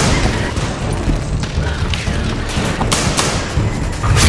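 Rifle gunfire in a firefight: irregular sharp shots, single and in short clusters, over a steady low rumble.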